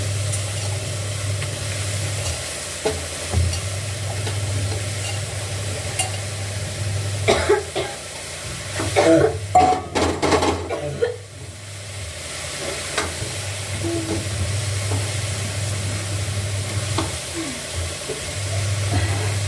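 Wheat-flour dough being kneaded by hand: soft squishing and pressing noises over a steady low hum that breaks off a few times. A louder cluster of sounds with sharp clicks comes about nine to eleven seconds in.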